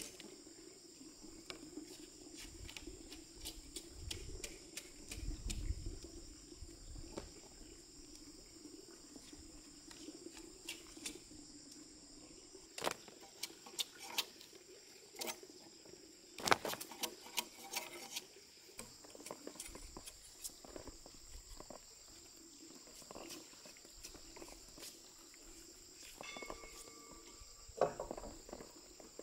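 Scattered knocks, clacks and cracks of wooden logs and bark being handled and stacked, some strokes sharper and louder than others. Insects chirr steadily behind them.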